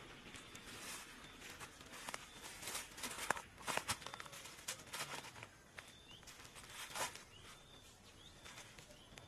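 Rustling and crackling of dry leaf litter and kumquat branches as a person picks fruit and shuffles about in a crouch, with scattered sharp clicks and knocks from handling a woven bamboo basket. The loudest clicks come about three to four seconds in and again about seven seconds in.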